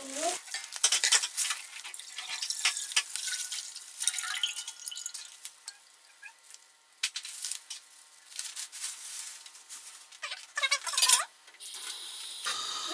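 A plastic bag of milk crinkling and knocking against a stainless steel saucepan as milk is poured from it into the pan, with scattered clicks and clatters of kitchen handling.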